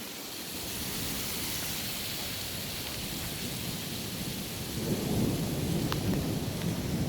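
Steady rain with thunder, a deep rumble of thunder building up about five seconds in.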